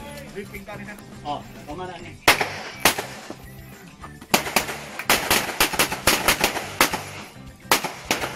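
Pistol shots from a shooter working through a practical shooting stage: two shots about half a second apart a couple of seconds in, then a rapid string of about a dozen shots, and two more near the end. Background music plays underneath.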